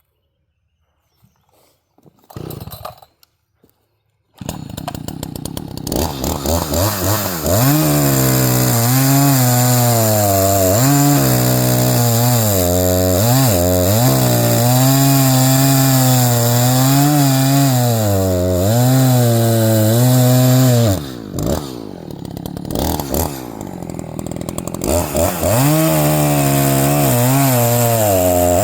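Echo CS-590 Timber Wolf two-stroke chainsaw starting up about four seconds in, then running at high revs with its pitch repeatedly dipping and recovering as it bogs under load cutting logs. It falls back to idle for a few seconds near the end, then revs up again.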